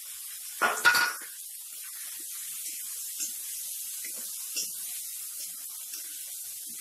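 Boiled green peas sizzling in hot oil in a steel kadai, a steady hiss, while a metal spatula scrapes and clanks against the pan as they are stirred; one loud clatter about a second in.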